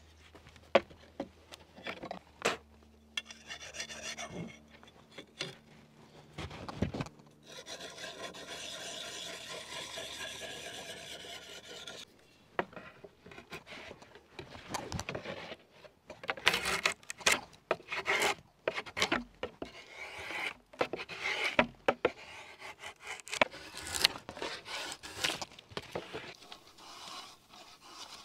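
Drawknife shaving a cedar plank clamped in a shaving horse into thin canoe sheathing: repeated scraping strokes of the blade along the wood. In the first few seconds there are knocks and clatter as the plank is handled.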